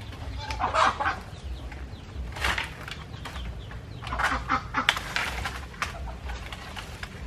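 Chickens clucking: a few short, irregular calls, with a cluster of them about four to five seconds in.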